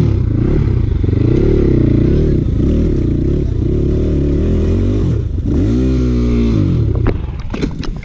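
Dirt bike engine running and revving up and down as it is ridden over a rough dirt trail, with a quick rise and fall in revs about six seconds in. A few sharp knocks near the end.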